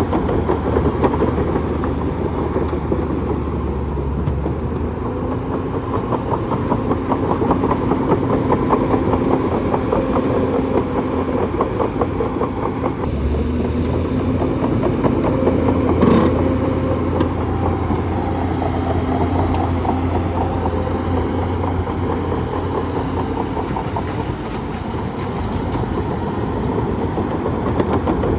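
Bulldozer's diesel engine running steadily under a dense, rapid metallic clatter, as of crawler tracks rolling, with one sharp knock about halfway through.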